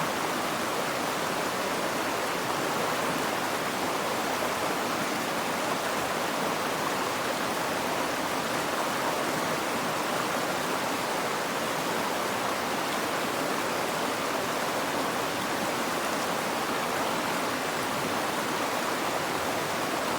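Steady, unbroken rushing of flowing water, even in level throughout.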